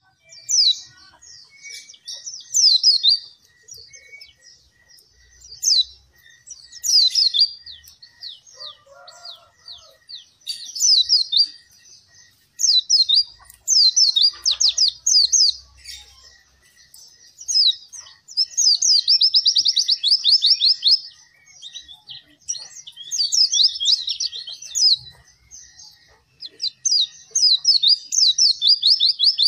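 White-eye (pleci) in full song: rapid, high twittering phrases of quick down-slurred notes, each one to three seconds long, repeating every couple of seconds.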